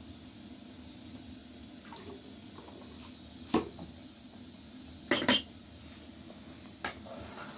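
Kitchenware knocked and clinked four times: one sharp clink about three and a half seconds in, two close together about five seconds in, and a lighter one near the end, over a faint steady background noise.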